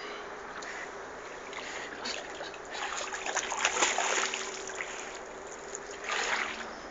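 Water splashing and sloshing in two spells: a longer, louder one from about three to four and a half seconds in, and a short one near six seconds.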